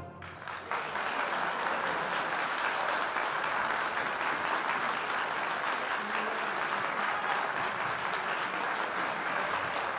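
Concert audience applauding: the clapping starts about half a second in, just after the orchestra's final chord dies away, and continues steadily.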